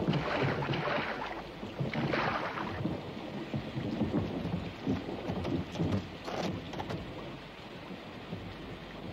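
Thunderstorm sound effects: a steady rush of heavy rain with surges of rumbling thunder, strongest in the first few seconds and easing to a steadier downpour after that.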